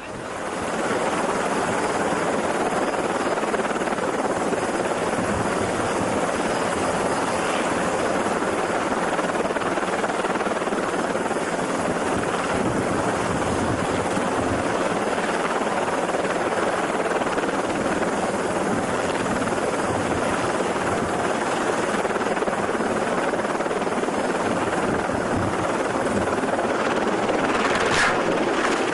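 Light helicopter's engine and rotor running steadily on a ship's helideck, an even rushing noise. Near the end comes one brief sharp sound as the helicopter starts to tip over.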